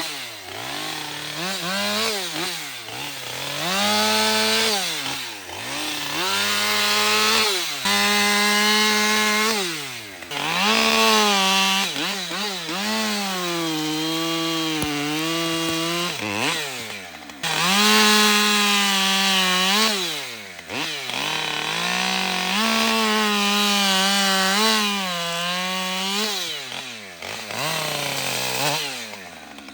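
Gas chainsaw cutting wood, revved up and let back down about ten times, with some longer stretches held at a steady pitch.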